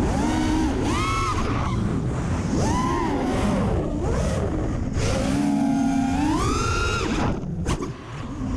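Brushless motors of a TBS Source One 5-inch FPV quadcopter on DAL T5040 props, heard from the onboard camera: a whine that rises and falls in pitch with the throttle over a rush of wind. Near the end the sound dips briefly with a short click, then the whine returns.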